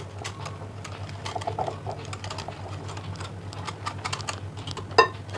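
Wire whisk beating a runny flour batter in a glass bowl, its wires ticking and clicking fast and unevenly against the glass. One louder, ringing clink comes near the end as the whisk strikes the bowl.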